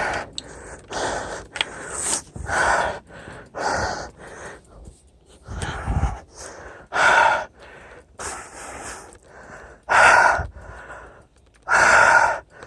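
A man panting hard, out of breath from exertion, with loud gasping breaths in and out roughly once a second.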